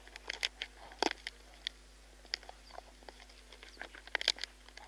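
Spotted hyaena crunching buffalo bones: irregular sharp cracks and crunches in two busy clusters, one about a second in and one near the end, with sparser cracks between.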